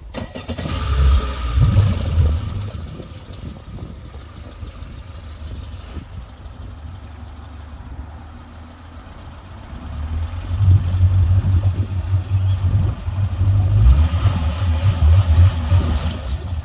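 Mercury FourStroke outboard motor running at fast idle with its cowling on. A low rumble runs throughout, louder near the start and again from about ten seconds in.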